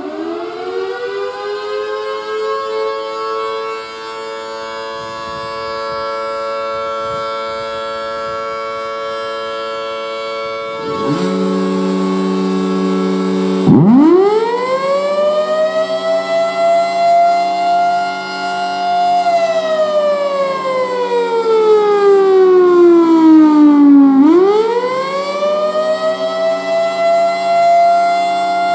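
Federal Signal Thunderbolt 1000 mechanical siren, with its blower, sounding loudly. It winds up to a steady tone that holds for about ten seconds. After a lower hum joins in, the pitch drops sharply, climbs, holds, slides slowly down and climbs again: the rising and falling wail of the attack signal.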